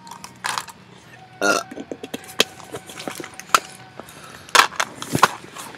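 A girl burping several times in short bursts, with sharp clicks in between.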